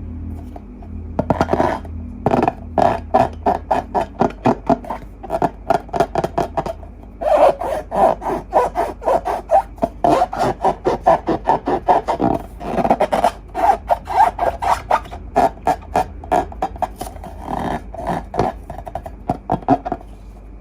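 Hands rubbing and squeezing rubber balloons and slime close to the microphone: a quick, irregular run of squeaky, squelching rubbing strokes, several a second, with a short pause about a third of the way in.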